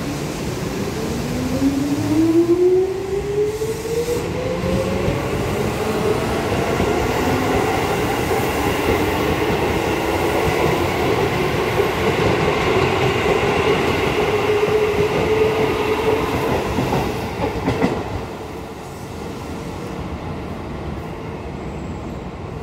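Keisei 3400 series electric train pulling away from a station platform. Its motor and gear whine climbs in pitch for the first several seconds as it gathers speed, then holds steady as the cars run past. The sound drops about three-quarters of the way through as the last car goes by.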